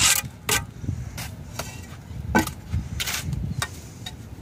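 Mason's steel trowel and concrete blocks: an irregular string of sharp knocks and short scrapes as blocks are set in mortar, with the loudest knock about halfway through.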